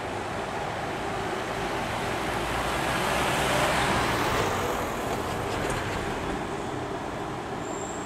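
Street traffic noise, with a vehicle passing close by that swells to its loudest about halfway through and then fades. A faint high-pitched squeal comes in near the end.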